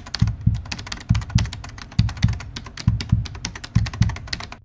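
Edited suspense sound bed: low heartbeat-like thumps, about three a second, under a rapid run of sharp ticking clicks. The clicks cut off abruptly near the end while the thumps go on.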